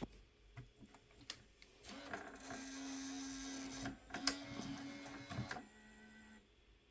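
Small electric motor mechanism of a Kenwood MASK KRC-794R car cassette receiver, which has a motorized front mask. A few light clicks, then a motor whirring for about two seconds, a click and short pause near the middle, and the whir running again for about a second and a half before stopping.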